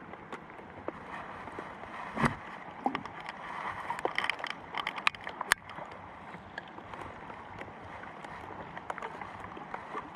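Steady hiss of rain with scattered knocks and clicks, the loudest about two seconds in and a cluster of them between four and five and a half seconds.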